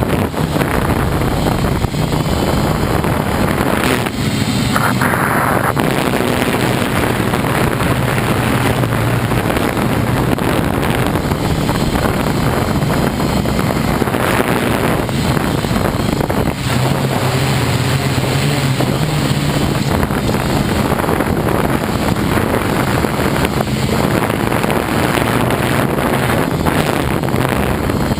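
Hexacopter's electric motors and propellers humming steadily in flight, the pitch shifting a little as the throttle changes, with wind buffeting the onboard microphone.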